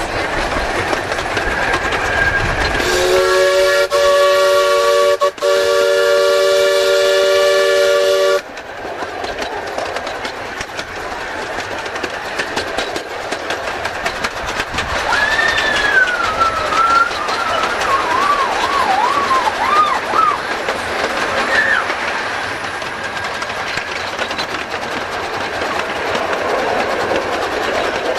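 A 15-inch-gauge live-steam locomotive sounds one long chime-whistle blast of about five seconds, a chord of several steady tones with a momentary break, over the steady running noise and clickety-clack of the train on the track. Later a wavering high squeal rises and falls for several seconds.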